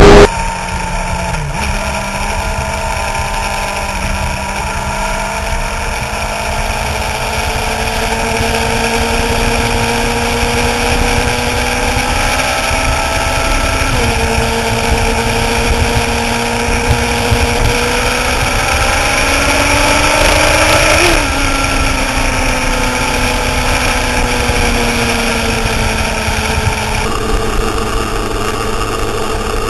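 Suzuki GSX-R sportbike's inline-four engine running at cruising speed on the move, its pitch climbing slowly and dropping sharply about 14 and 21 seconds in.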